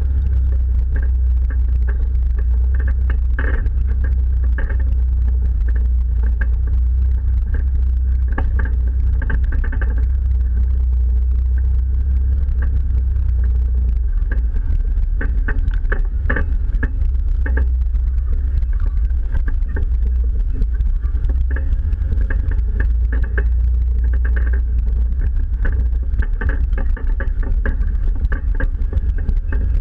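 Jeep engine running low and steady as it crawls a rough trail, with scattered knocks and rattles from the body and suspension over the bumps.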